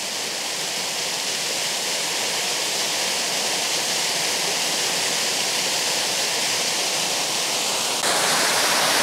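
A waterfall and its rocky creek: a steady, even rush of water that grows slightly louder over the first few seconds and steps up a little about eight seconds in.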